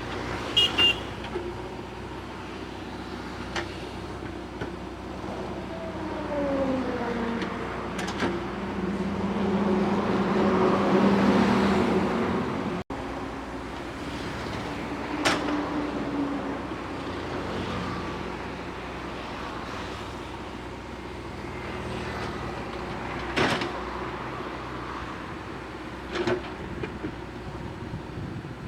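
JCB 3DX backhoe loader's diesel engine running as it works, swelling louder under hydraulic load around ten seconds in, with several sharp metallic clanks.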